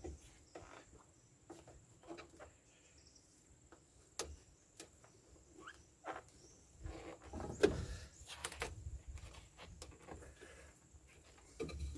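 Scattered clicks, taps and knocks of plastic trim being fitted around an excavator cab window, with a louder stretch of rubbing and a sharp knock about seven to eight seconds in.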